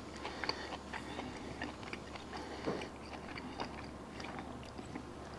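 A person chewing a bite of fried, breaded goose gizzard: faint, irregular small clicks of the chewing.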